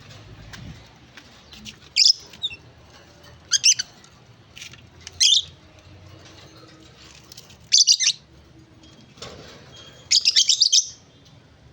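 Pet birds chirping in short, loud, high-pitched bursts, five times, the last a quick run of notes about ten seconds in.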